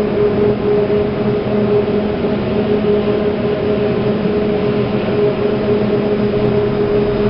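Steady machine hum with several held tones over an even rushing noise, typical of a lift car in motion.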